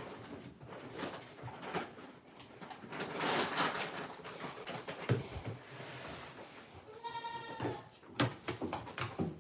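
A goat bleats once, about seven seconds in: a single high call lasting under a second. Scattered rustling and a few sharp knocks are heard around it.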